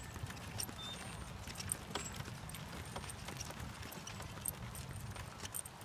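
A wooden wagon rolling over a dirt path, its wheels giving a low rumble, with scattered clicks and rattles and a loose patter of steps on the dirt.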